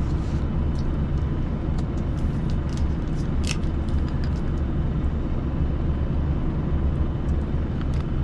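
Steady low rumble of a parked truck's diesel engine idling, with a few faint light clicks and taps over it.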